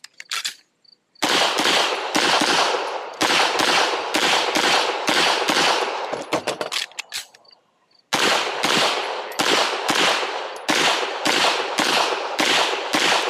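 Semi-automatic pistol fired in a fast string of shots, about two to three a second. The shots break off for about a second past the middle for a magazine change, then a second string follows. Light handling clicks come before the first shot.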